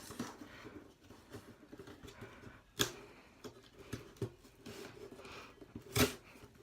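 A cardboard shipping box and its packaging being opened by hand: scattered taps and clicks over soft rustling, with a sharp click a little before halfway and a louder knock near the end.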